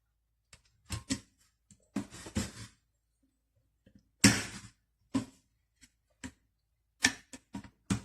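Scattered knocks, clicks and a short rattle of a Hamilton Beach blender being handled, with one louder clunk about four seconds in; the motor is not running.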